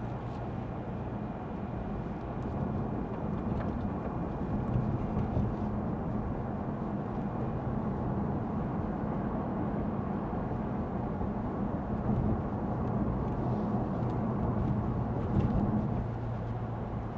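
Steady tyre and road noise on a wet road heard inside the cabin of a moving 2022 Lexus ES 350 F Sport, with a low hum from its V6 underneath.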